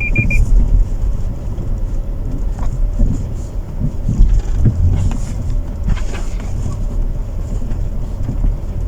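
Low, uneven rumble of a vehicle, with three quick high electronic beeps right at the start.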